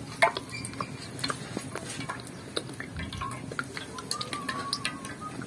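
Scattered light clinks and knocks of cooking utensils and dishes, with a few short high squeaks.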